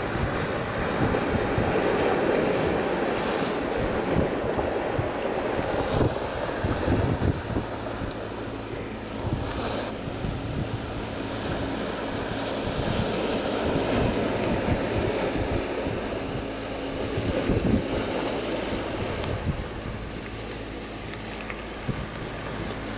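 Small waves washing over a pebble beach, with wind buffeting the microphone; a few brief hissing swashes stand out.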